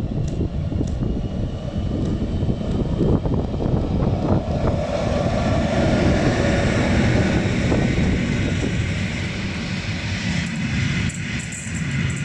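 ASEA Rc6 electric locomotive hauling a passenger train past, its running noise and a low rumble from the wheels on the rails, loudest as the locomotive goes by about halfway through. The coaches then roll past with a steady rumble.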